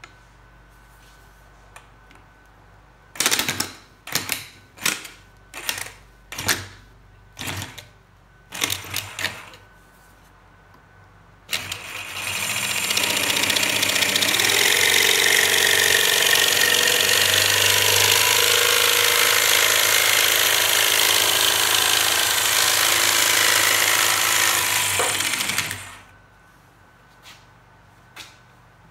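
Corded jigsaw cutting thin hardboard: a string of short bursts of the saw, then one long steady cut of about fourteen seconds that stops suddenly.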